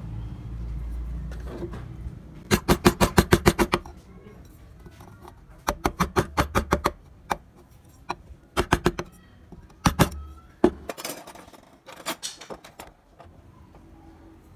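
Bursts of rapid sharp tapping, about eight taps a second in runs of roughly a second, repeated several times.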